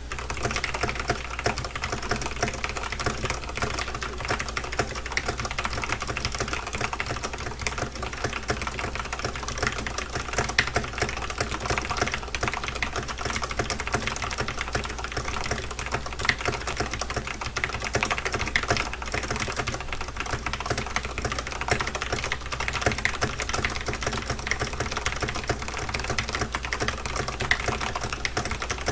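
Fast, continuous typing on a Corsair K70 RGB Rapidfire mechanical keyboard with Cherry MX Speed (Silver) switches: a dense, unbroken stream of keystrokes, starting abruptly at the beginning.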